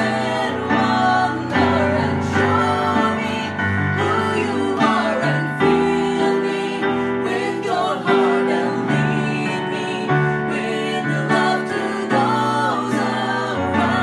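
Two women and a man singing a worship song together, accompanied by a Casio digital piano.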